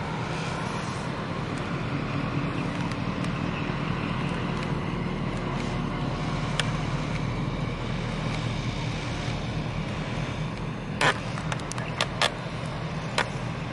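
Steady low engine rumble with a faint hum, from the passing ship and its tug or from nearby traffic. Near the end a handful of sharp clicks or knocks stand out above it.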